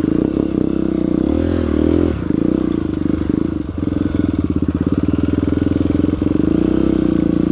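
Single-cylinder four-stroke trail motorcycle engine running at low revs with a steady, fast pulse, given a brief rev about a second and a half in.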